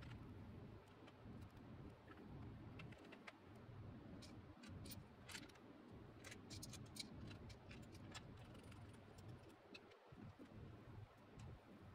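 Faint, scattered metallic clicks and ticks of an engine side cover and its screws being handled and driven in with a screwdriver, mostly in the middle, over a low steady room hum.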